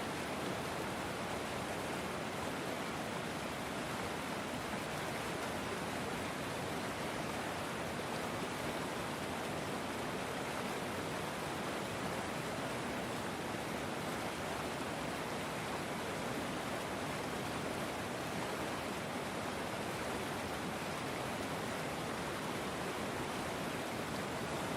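River water flowing, a steady even rush with no changes.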